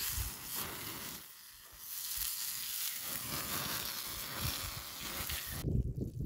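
Pieces of dove meat sizzling as they fry in a pan over a wood campfire. It is a steady hiss that cuts off suddenly near the end.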